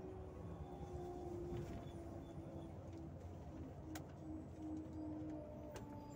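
Inside a moving Volzhanin-6270 city bus: a steady low rumble of engine and road, with a whining tone that slowly falls in pitch and breaks up in the second half, and two light clicks near the end.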